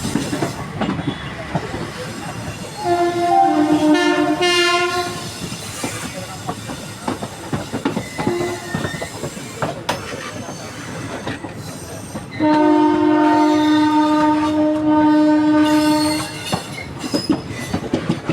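Train running over rail joints with a clickety-clack, and a locomotive horn sounding twice: a blast of about two seconds a few seconds in, its pitch shifting near its end, then a steady blast of about four seconds past the middle.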